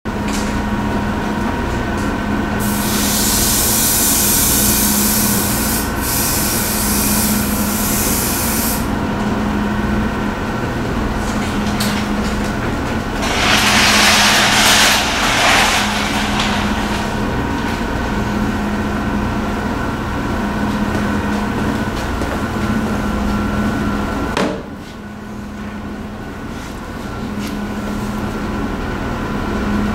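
Aerosol spray paint can hissing in two long bursts, one of about six seconds and a louder one of about three, over a steady low machine hum. The hum drops suddenly about 24 seconds in, then slowly comes back.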